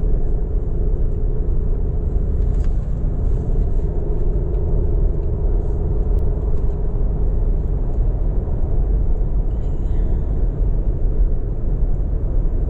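Steady road rumble and engine hum of a car travelling at highway speed, heard from inside the cabin.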